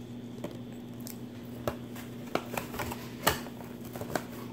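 Handling noise from a cardboard gift box being held open and moved: a scattering of light clicks and taps over a steady low hum.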